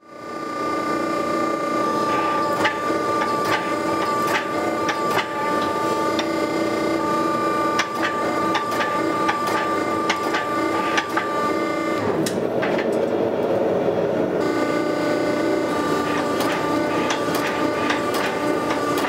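Forging press running with a steady hum from its hydraulic pump while its flat dies squeeze a glowing steel billet, with sharp ticks and cracks throughout. Past the middle the hum gives way for about two seconds to a rougher, noisier sound, then returns.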